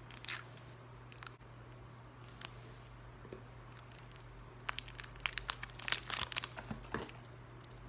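Clear plastic wrapping crinkling as it is peeled off a small plastic makeup pot, in a few scattered crackles at first and then a busy run of crinkling from about five to seven seconds in.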